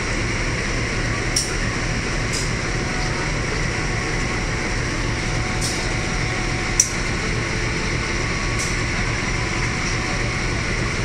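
Diesel engine of a CC201 diesel-electric locomotive idling steadily with a low hum, standing at the platform. A few brief sharp clicks come over it, the loudest about seven seconds in.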